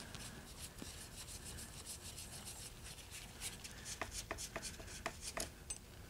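Faint clicking and scraping of a hand screwdriver turning a T20 Torx screw out of a small-engine carburetor, with a run of sharper clicks about four seconds in.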